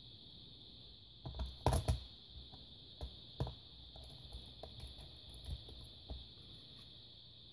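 Clicks and taps of plastic laptop parts being handled and pressed back into place: a quick cluster of louder knocks about a second and a half in, then scattered lighter clicks.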